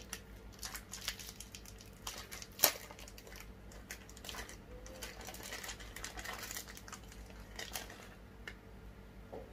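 A sweet wrapper being handled and opened: scattered crinkles and light ticks, with one sharp snap about two and a half seconds in.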